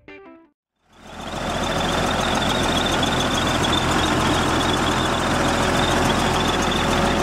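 Caterpillar D5 SA crawler dozer's diesel engine running steadily, heard close up at the engine bay. It comes in about a second in.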